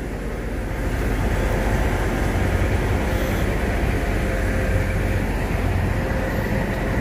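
Steady low rumble of semi-truck diesel engines running, growing a little louder over the first second, with a faint steady hum over it.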